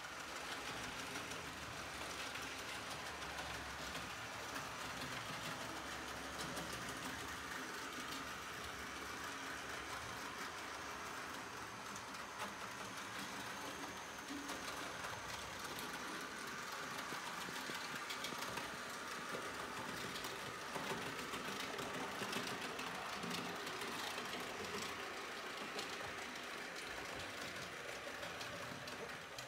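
Model BLS RBDe 4/4 multiple-unit train by mtr running along the layout track: a steady whirr of its small electric motor and wheels on the rails, with light clicks over the rail joints.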